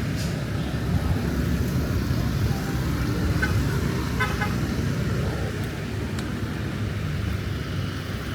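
Car driving with a steady low rumble of engine and road, and two short horn toots about three and a half and four seconds in.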